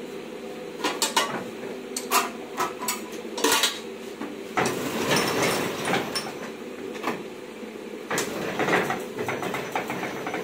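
Sharp metallic clinks and knocks from hands working at the plate cylinder of a Hamaja 700 offset press, over a steady low hum. From about halfway the clinks give way to a rubbing, scraping noise as the cylinder is wiped by hand.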